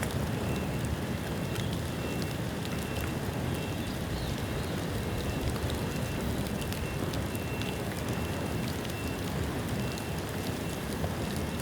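Bonfire of rain-damp bamboo burning: a steady rush of flame with scattered small crackles and ticks.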